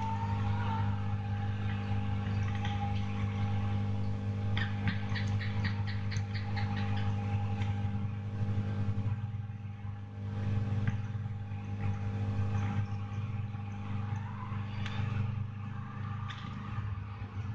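A steady low hum from a running appliance, with a quick run of about ten light ticks about four and a half seconds in.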